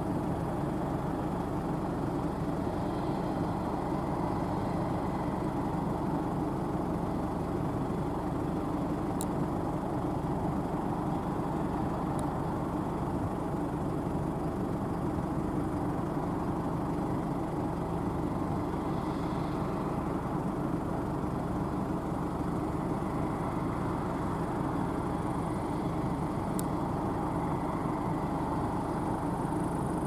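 Claas Lexion 560 combine harvester running steadily while harvesting peas: engine and threshing machinery under load. A few faint high ticks sound now and then.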